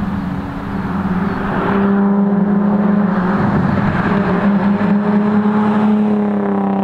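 Infiniti G35 coupe's 3.5-litre V6 engine and exhaust running at steady high revs as the car is driven, its pitch climbing slightly near the end.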